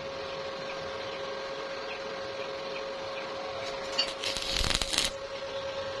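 A steady background hum, then about four seconds in a click and a crackling burst of a stick-welding arc lasting about a second: a short tack weld on a steel door hinge.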